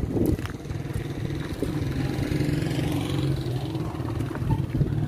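A motor vehicle engine running steadily, with a short knock just after the start.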